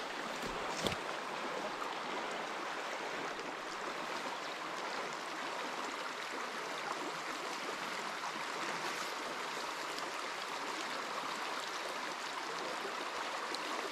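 Small mountain stream running over rocks, a steady rush of water, with one brief knock about a second in.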